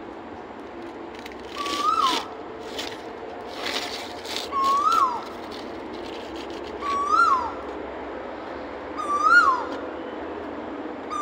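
A bird repeating one short whistled call four times, about every two and a half seconds, each a note that rises and then drops quickly. Short bursts of rustling come through in the first few seconds.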